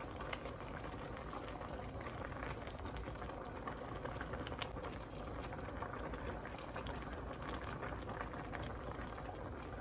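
Pot of okra soup with red palm oil boiling, a steady bubbling with fine crackles.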